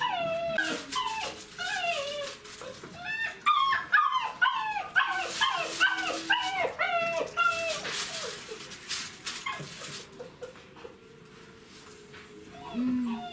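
Czechoslovakian wolfdog puppies yipping and whining in play: a quick run of high calls, each falling in pitch, with clicks and knocks among them. The calls thin out after about eight seconds.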